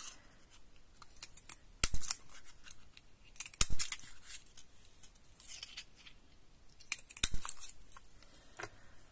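Handheld heart-shaped paper punch cutting hearts out of red paper three times, each press a sharp snap, with fainter paper rustling and handling clicks between the presses.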